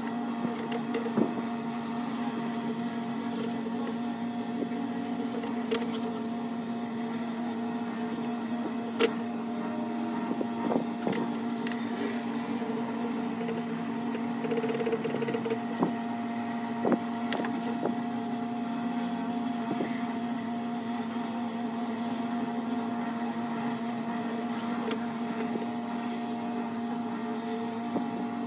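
A steady machine hum, one unchanging pitch with overtones, with a few light clicks and taps of small metal tools being handled on a workbench.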